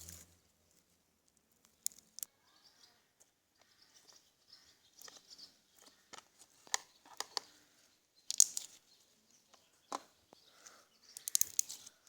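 Slime being squeezed and worked, giving irregular sharp pops and crackles with short quiet gaps, the loudest clusters about eight and eleven seconds in.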